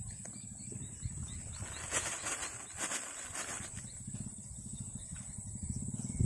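Quiet outdoor ambience: a steady high-pitched drone with a low rumble underneath, and a spell of rustling that starts about two seconds in and lasts over a second.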